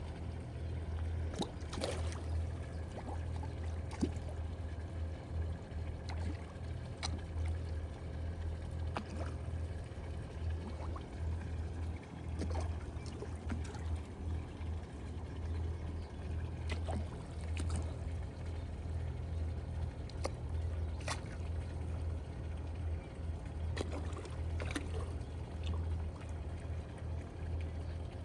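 Water trickling and pouring into a koi pond, with small scattered splashes over a steady low hum.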